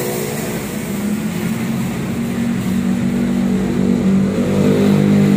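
A motor vehicle's engine running steadily, its pitch rising about four and a half seconds in as it speeds up.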